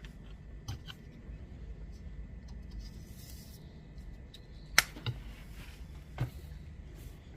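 Scattered sharp clicks and knocks of metal tap parts and tools being handled, the loudest single click about five seconds in, with a short hiss around three seconds in.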